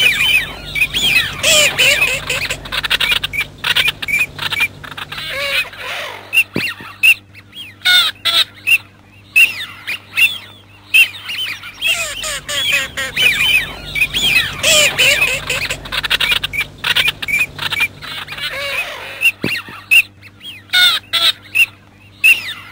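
A flock of Eurasian wigeon calling: many overlapping whistles and squawks. The same stretch of calls repeats about 13 seconds apart, a looped recording.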